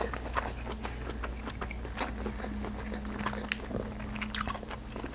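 Close-miked chewing of seafood-boil shrimp, with many small wet mouth clicks, over a faint steady hum.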